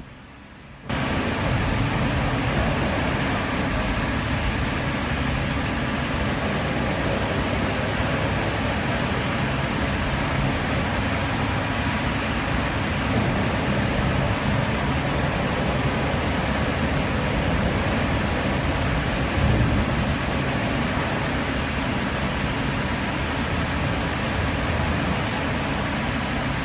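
Steady, loud sawmill machinery noise, starting about a second in: a continuous rumble and hiss from the primary sawing line, with no distinct cuts or impacts standing out.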